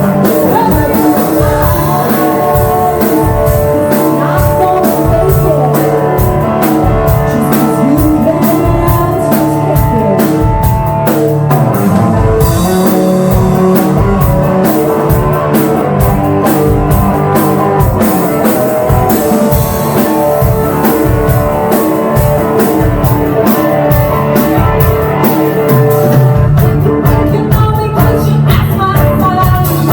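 Live rock band playing a song: guitar and drum kit keep a steady beat, with a voice singing over them.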